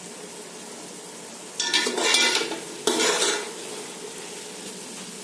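Chicken pieces in masala sizzling in a cooking pot, with two loud bursts of metal clatter against the pot about a second apart.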